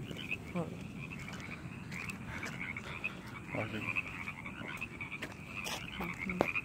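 A chorus of many frogs calling at once: a thick layer of short, high-pitched calls repeated rapidly and overlapping without a break.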